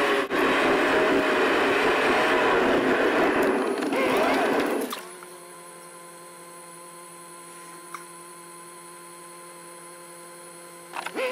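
Car driving along a road, its engine and tyre noise steady. It cuts off abruptly about five seconds in, leaving a faint steady hum with a few fixed tones, until loud sound returns just before the end.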